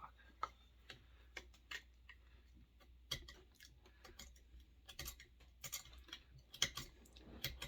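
A hand scraper scratching hardened gasket sealant off the aluminium crankcase mating surface of a chainsaw, in faint, irregular short strokes and ticks that come more often in the second half.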